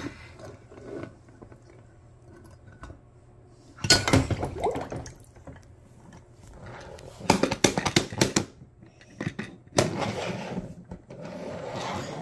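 Die-cast toy cars splashing into a tub of water and clicking against each other, in three short bursts of splashing and clatter.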